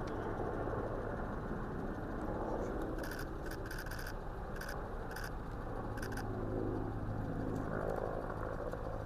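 A vehicle engine running steadily, with a run of short clicks or rattles between about three and six seconds in.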